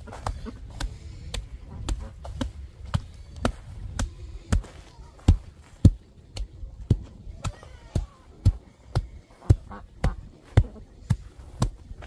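Hand tamper, a wooden block on a pole, pounding a loose gravel-and-soil floor base to compact it: dull thuds, about two a second.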